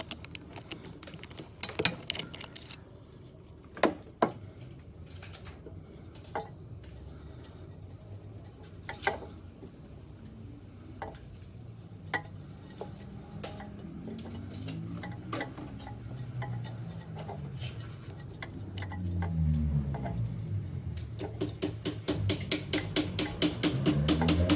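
Metal plumbing fittings and tools clinking and tapping as they are handled, then from about halfway a small cordless drill driver's motor whirring up and down in pitch. Near the end comes a fast, even run of clicks.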